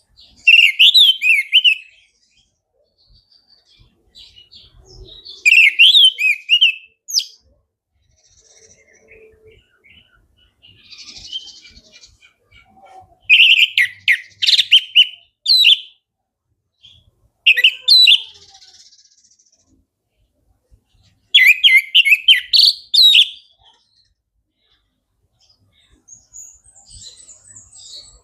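Orange-headed thrush singing in full, open voice (gacor ngeplong): five loud phrases of quick, varied, rising and falling notes, each about two seconds long, with pauses of soft twittering between them.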